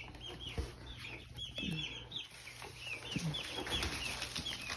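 A flock of four-week-old chicks peeping, many short high chirps overlapping one after another, with a few soft knocks.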